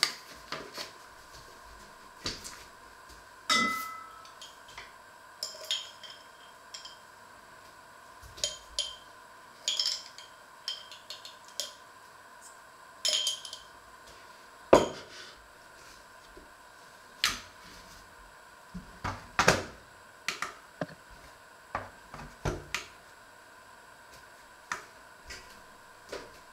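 Kitchenware being handled: scattered clinks, knocks and clanks of metal bowls, pans and utensils set down and moved, with a brief metallic ring about three and a half seconds in.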